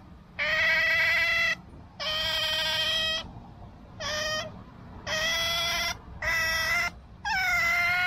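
Asian small-clawed otter calling: a string of six high, steady-pitched squeals, each half a second to a second long, with short pauses between them.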